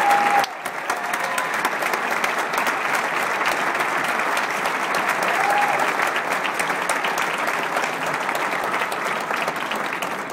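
Large audience applauding steadily, easing off toward the end.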